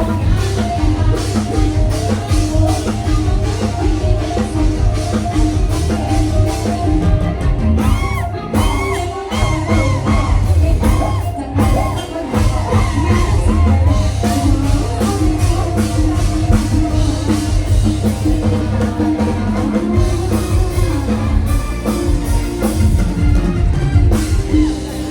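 Loud live band music from a stage show: a singer's voice over a drum kit and a heavy bass beat.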